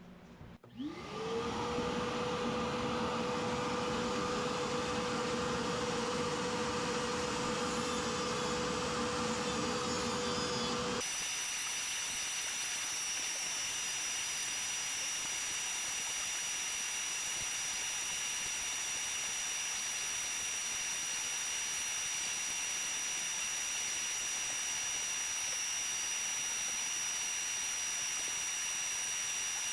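An electric motor spins up about half a second in and runs at one steady pitch; about 11 seconds in the sound changes abruptly to a steady hiss with a high, constant whine.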